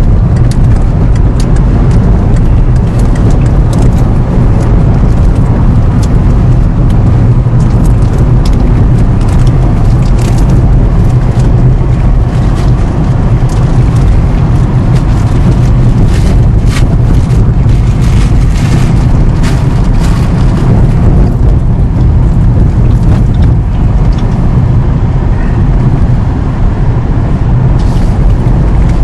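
Loud, steady low rumble of a motor vehicle running, with scattered rattles and clicks.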